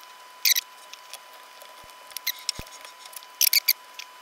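Small scratchy clicks and scrapes of metal tweezers working a rubber band onto the pulley of a 3.5-inch floppy drive's spindle motor, in a few short clusters, the loudest near the end.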